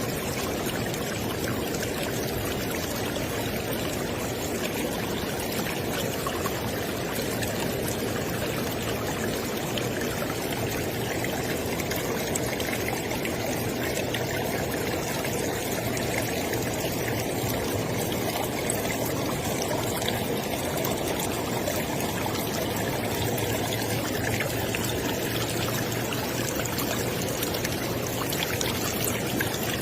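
River water flowing steadily, a constant rushing and splashing with no breaks.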